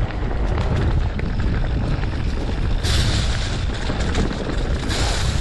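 Wind noise on the microphone over the clatter and rattle of a mountain bike rolling over rough, rocky singletrack, with brief hissing surges about three and five seconds in.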